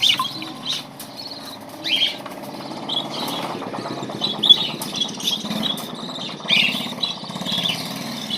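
Budgerigars chirping, a rapid run of short high-pitched calls, over a steady low engine-like rumble.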